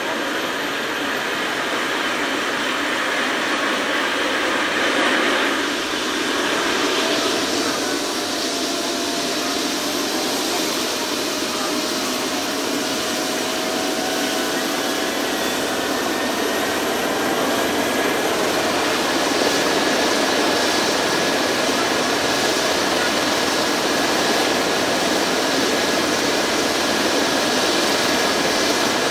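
EC135 medical helicopter's turbine engines running on the ground with its rotor turning: a steady whine over a rushing noise, growing a little louder partway through.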